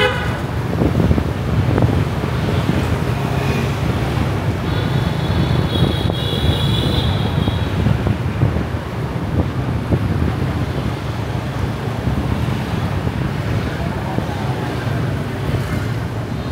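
Road and traffic noise from a car driving through city streets: a steady low rumble. A high, steady tone sounds from about five to eight seconds in.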